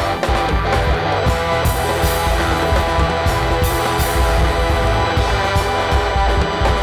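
Rock band playing live: distorted electric guitars with bass and a drum kit.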